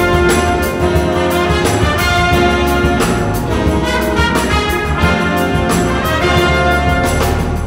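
Big band playing jazz in full: trumpets, trombones, saxophones, clarinets and flutes over a steady beat.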